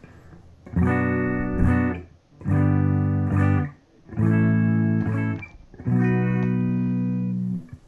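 Electric guitar through a Boss Katana Artist MK2 amp on its clean channel with the contour 1 EQ setting: four strummed chords, each let ring for a second or so, the last held longer and then damped near the end.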